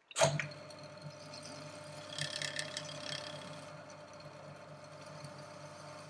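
Record CL1 lathe switched on with a click and its electric motor running with a steady hum. About two seconds in, a scratchy scraping lasts for a second and a half.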